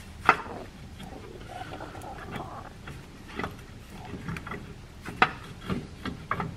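Sharp clicks and knocks of a bolt and the engine mount's metal parts being handled and pushed into line by hand. There are about six separate knocks, with the loudest just after the start and about five seconds in.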